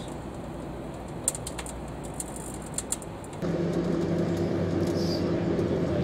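Microwave oven running with light bulbs and a metal halide arc lamp inside: a steady hum with sharp crackling clicks from arcing and plasma in the bulbs. About three and a half seconds in, it cuts to a louder steady hum with a few held tones.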